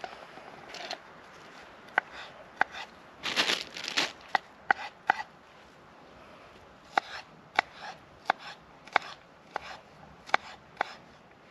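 Kitchen knife cutting onion on a wooden chopping board: slow, separate knocks of the blade meeting the board, with a brief rustling stretch a little over three seconds in.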